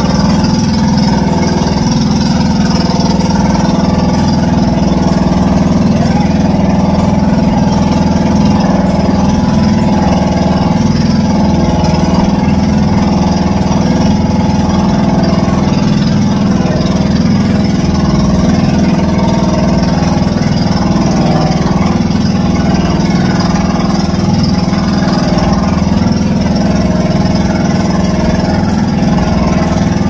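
Engine of a motorized outrigger boat (bangka) running steadily at an even speed.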